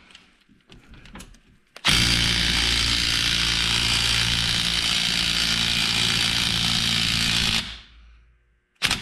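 DeWalt cordless impact wrench hammering steadily for about six seconds as it turns the bolt of a press tool, pulling the frozen rear wheel hub into a new hub bearing. A few light clicks come before it starts, and a short burst comes right at the end.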